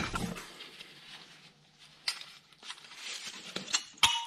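Front brake caliper being worked off its carrier by hand: light scattered metallic clicks and scrapes, with a sharp ringing metal clink about four seconds in.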